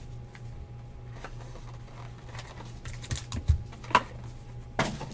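Light taps and clicks of trading-card boxes and cards being handled and set down on a table, with two sharper knocks about four and five seconds in, over a steady low hum.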